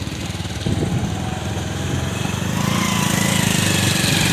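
A small engine running steadily, getting louder about two-thirds of a second in, with a rising rushing hiss joining it about halfway through.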